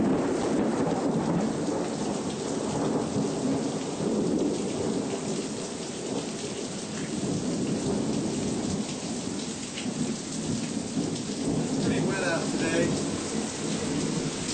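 Hurricane wind and heavy rain: a steady, dense rushing with a deep rumble, the gusts buffeting the microphone.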